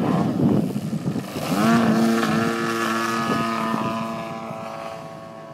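Engine and propeller of a large radio-controlled aerobatic model airplane in flight. Its pitch sweeps up about a second and a half in and then holds steady at high power, fading toward the end as the plane moves off.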